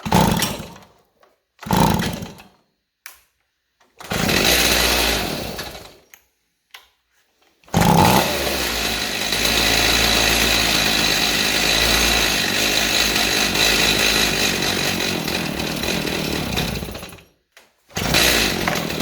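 Stihl MS290 two-stroke chainsaw being started: it fires in three short bursts that die away, then runs steadily for about nine seconds and cuts out, with another brief burst near the end. The owner takes the stalling for fuel starvation, and the saw turns out to have no gas in it.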